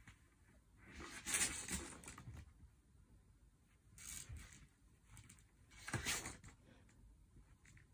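A cat high on silvervine rubbing and rolling against a tabletop, its fur and body rustling and scraping on the surface in three bursts: a longer one about a second in, then shorter ones at about four and six seconds.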